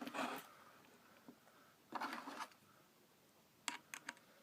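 Faint handling sounds of wires being worked onto a light switch's terminal screws: two short bouts of rubbing and rustling, then a few small clicks near the end.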